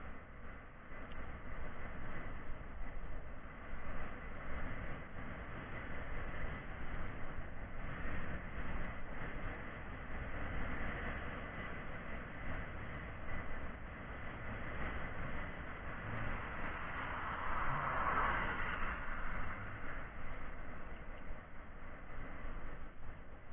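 Continuous rumbling traffic and vehicle noise as picked up by a small action camera's built-in microphone, dull and without any top end. It swells louder about three quarters of the way through, as of something passing close.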